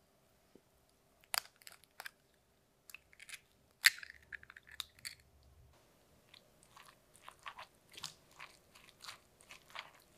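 Sharp taps and clicks against a glass mixing bowl as minced onion and eggs are added to shredded cabbage, the loudest about four seconds in. From about six seconds a spatula stirs the raw cabbage mixture, making a quick run of small crunchy ticks.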